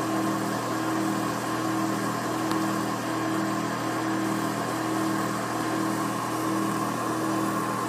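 Steady engine idle: an even mechanical hum with a few held tones that does not change.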